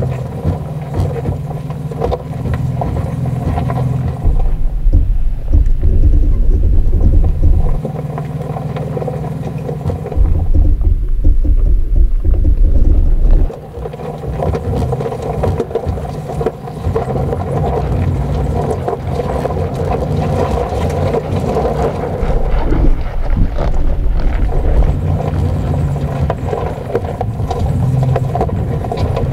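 A 2020 Toyota 4Runner TRD Pro's 4.0-litre V6 running as it drives a rocky gravel off-road track. Loud low rumbles, each a few seconds long, come and go three times.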